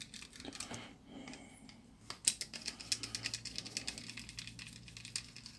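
Small screwdriver working the tiny screws of a Siemens MC60 mobile phone's plastic housing: quiet, scattered clicks and scrapes of the metal bit on screw heads and plastic.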